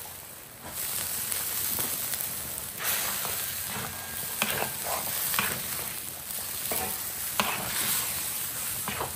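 A metal spatula stirring a wok of thin rice porridge with cabbage and cured meat boiling over a wood fire: a steady hiss of boiling with repeated scrapes and clicks of the spatula against the pan.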